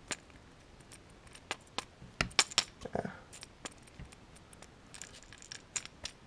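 Split-ring pliers, a steel split ring and a treble hook clicking and clinking against each other and the hard lure body as the hook is worked around the opened split ring of a crankbait. The clicks come in irregular clusters, loudest about two seconds in, with another run near the end.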